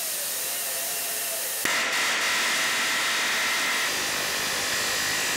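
Die grinder with a small cut-off wheel running steadily while cutting into the head of a steel rivet on a brake line bracket. It makes a continuous hissing whine, and a stronger whine comes in after about a second and a half as the wheel bites into the steel.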